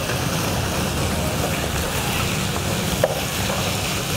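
Diced pork and shallots sizzling in oil in a nonstick frying pan, stirred with a wooden spatula, over a steady low rumble; a light tap of the spatula about three seconds in.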